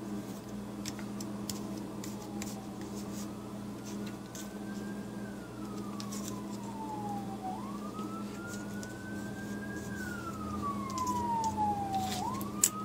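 Emergency-vehicle siren on a wail pattern, its pitch slowly rising and falling twice and starting to climb again near the end. Under it runs a steady low hum, with a few light clicks.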